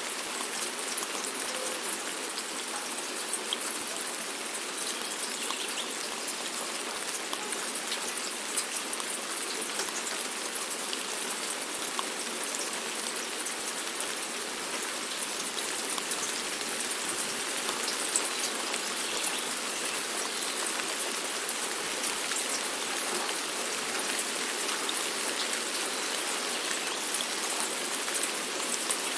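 Steady rain falling, a continuous hiss with many small drop ticks and patters on a surface.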